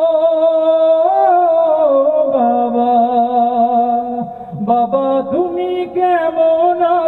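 A man singing the drawn-out refrain of a Bengali song about his father, holding long notes that step up and down in pitch a few times.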